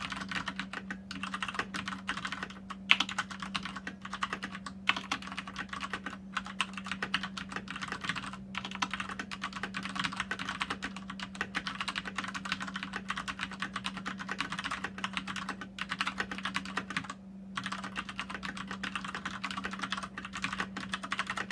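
Fast typing on a Fnatic Gear Rush mechanical keyboard: a dense, continuous clatter of key switches, broken by a few brief pauses.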